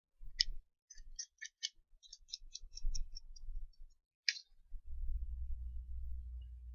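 A run of small, sharp clicks: a few at first, then quickening to about five a second before trailing off, with one louder click about four seconds in. Low bumps and rumble of hands working at the bench, heaviest near the end.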